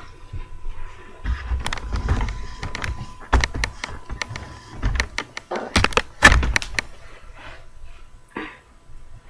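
A hairbrush drawn through hair in repeated strokes, a series of rustling swishes with dull bumps, the loudest about six seconds in.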